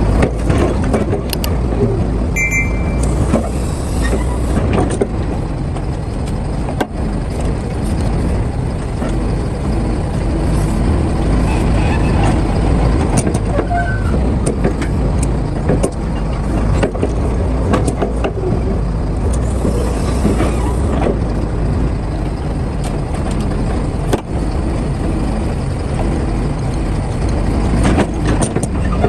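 Heavy excavator's diesel engine running steadily under load while loading a dump truck, with scattered knocks and clanks throughout.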